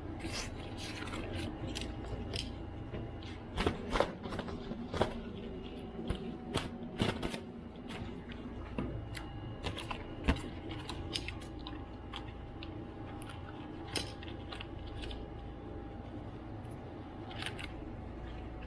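Scattered light clicks, taps and scrapes of small tools and laptop parts being handled during a MacBook repair, over a steady background hum. The clicks are densest in the first half.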